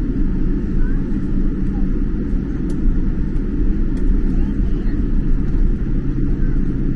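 Steady low rumble inside a jet airliner's cabin as it taxis, the engines running at taxi power.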